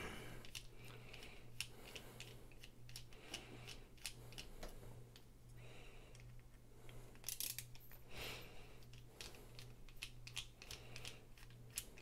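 Faint, irregular light clicks of a small screwdriver turning out T8 Torx screws from a knife's aluminum handle, metal bit ticking in the screw heads.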